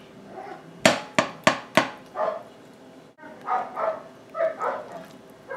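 A plastic slotted skimmer knocked four times in quick succession against a metal rim, shaking off thick coconut cream.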